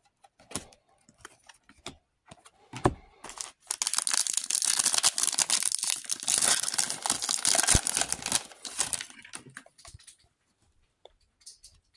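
A Panini Select football card pack's foil wrapper being torn open and crinkled: a few light clicks of handling first, then about five seconds of dense crackling as the wrapper is ripped and pulled apart, dying down to a few clicks near the end.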